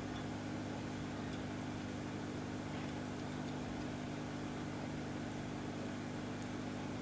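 Steady low machine hum at an even level, with a few faint light ticks.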